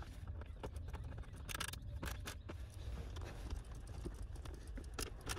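Plastic centre console trim in a car interior being handled and fitted back in place: a scatter of light clicks and knocks with a few short scrapes.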